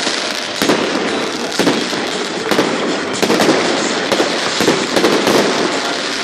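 Aerial fireworks bursting in quick succession: a dense, unbroken run of bangs and crackling with no let-up.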